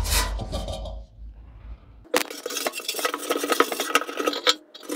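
Scrubbing and scraping inside a removed metal car fuel tank, clinking and rattling with a hollow ring from the tank, as old-fuel grime is scrubbed loose. It pauses for about a second early on and then resumes busily about two seconds in.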